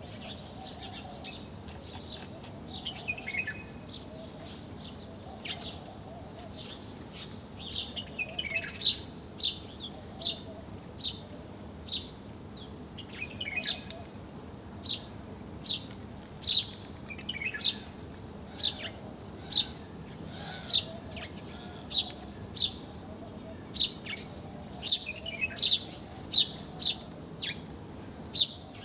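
Birds chirping: short, sharp, high chirps repeated about once a second, mixed with a few lower, falling twittering phrases.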